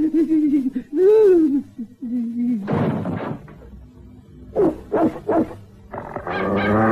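Cartoon dog's voice: whining cries with rising and falling pitch, a short rush of noise about three seconds in, then a long, low growl starting near the end.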